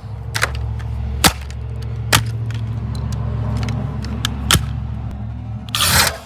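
Sledgehammer blows striking a plastic Dirt Devil vacuum cleaner: a few sharp cracks, the loudest about a second and two seconds in, and a rougher clatter near the end, over a steady low rumble.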